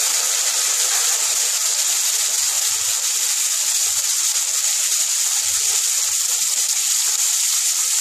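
Chopped tomato frying in hot mustard oil and ghee in a nonstick pan: a steady, even sizzle.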